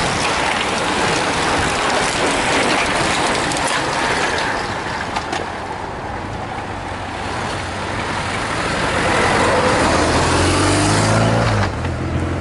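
A bunch of racing road bicycles rushing past close by, with a steady hiss of tyres and freewheels that dies away after about five seconds. Then a motor vehicle's engine comes up, getting louder in the second half and cutting off just before the end.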